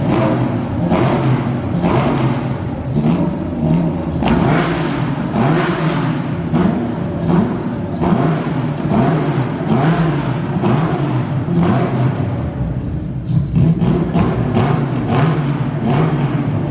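Porsche 911 GT3 Cup race car's flat-six engine being revved over and over, loud throttle blips that rise and fall in pitch every second or so.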